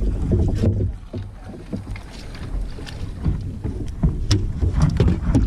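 Wind rumbling on the microphone, with scattered knocks and light clatter of plastic kayak gear being handled.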